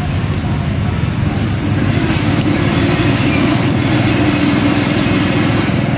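An engine running steadily, a little louder from about two seconds in.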